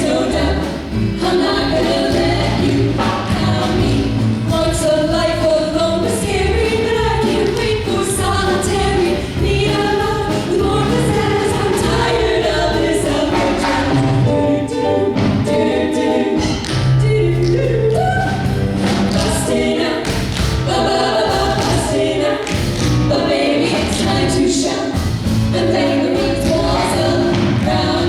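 Music: a song with several voices singing together over a steady beat.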